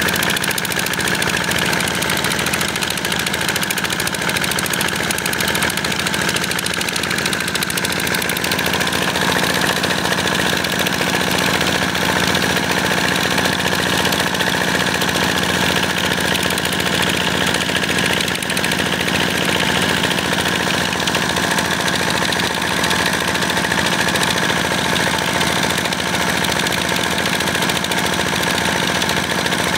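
185-type single-cylinder diesel engine running steadily under load, with the rapid beat of a single cylinder, as it drives a water pump. Muddy water gushes from the discharge pipe and splashes onto the ground.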